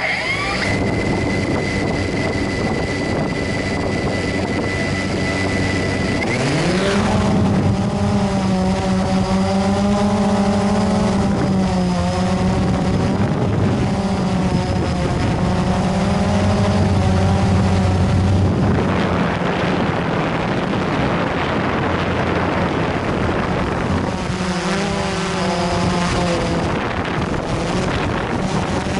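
Blade 350 QX3 quadcopter's electric motors and propellers running close to the camera: a steady high whine on the ground, rising in pitch as the drone lifts off about six seconds in, then a steady buzz that wavers in pitch as it climbs and flies.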